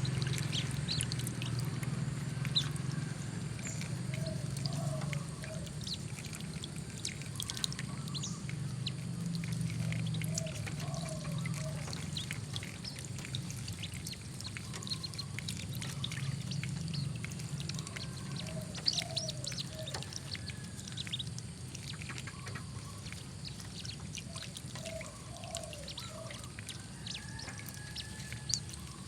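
Young whistling ducks bathing: water splashing and trickling with many small ticks and splashes, and short calls in little groups every six to eight seconds, over a steady low hum.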